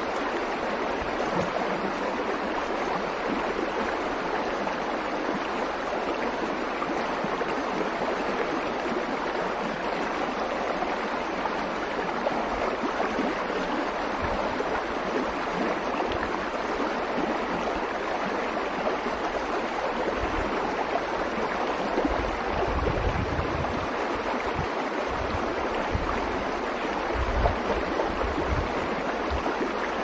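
Steady rushing of a fast-flowing forest stream over a rocky bed, with a few low thumps in the last third.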